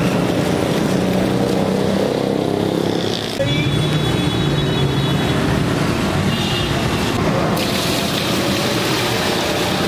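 Busy street traffic: motor vehicle engines running steadily.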